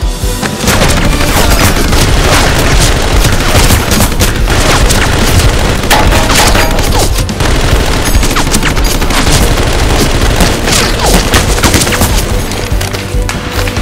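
Dense, rapid gunfire sound effects with booms, laid over loud background music.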